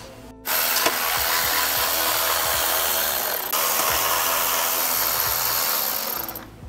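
Milwaukee cordless impact driver running steadily for about six seconds as it backs out a heat-shield bolt on the turbo downpipe. Its sound changes about halfway through.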